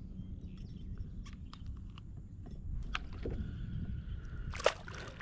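Wind rumbling on the microphone over scattered small clicks and knocks of fishing gear and hands as a small redfish is handled from a kayak, with one brief loud scuffle near the end.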